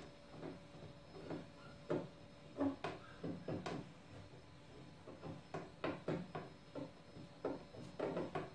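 Paintless dent repair tools working a hail dent in a car's steel hood panel: a run of irregular light taps and clicks, roughly two a second, a few of them sharper than the rest.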